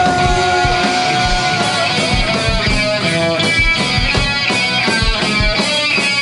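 Rock band playing an instrumental passage, recorded direct from the line output. Electric guitar holds one long note that ends about a second and a half in, then plays a run of quick notes over steady drums and bass.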